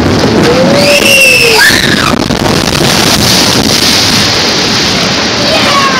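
Water rushing and splashing loudly around a log-flume boat, starting suddenly and holding steady. About a second in comes a short tone that rises then falls.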